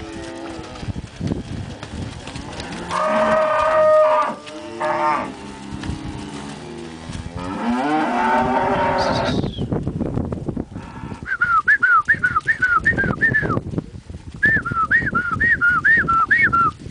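Angus-cross beef cows and heifers mooing, several long low calls rising and falling in pitch, one higher and stronger about three seconds in. In the second half come two runs of quick, high whistled notes, about four a second.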